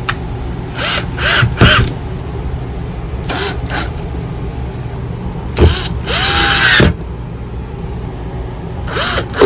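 Cordless drill-driver run in short trigger bursts, driving screws to fasten a cover back on: a few quick spins, then a longer one about two-thirds of the way through.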